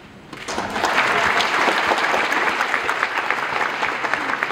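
Audience applauding, a dense steady clapping that starts about half a second in, after a short quiet.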